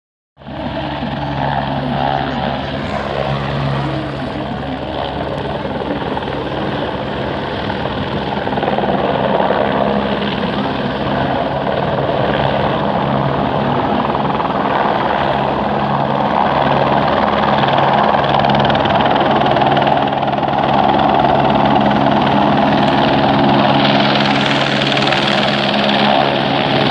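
Eurocopter AS350 Écureuil helicopter's rotor and turbine running steadily as it flies past and comes in to land, slowly growing louder. Near the end a rushing hiss joins as it settles into its own dust-raising downwash.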